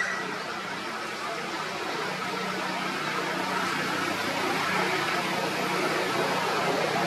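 Steady background noise with a faint low hum underneath; no distinct call or knock stands out.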